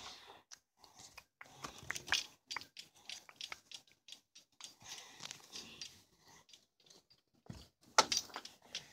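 Handling noise from a phone being carried while walking: rustling with many short scattered clicks and knocks, and a louder knock near the end.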